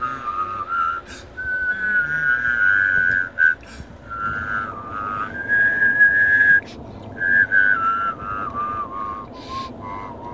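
A person whistling a tune by mouth: held notes and short steps, a pause a little past three seconds in, one long held high note around the middle, then notes stepping down toward the end.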